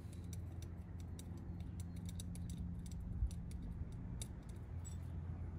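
Irregular light clicks and ticks of small metal parts being handled and fitted at the end cap of a Volvo Penta SX-A power trim/tilt pump's electric motor, over a steady low hum.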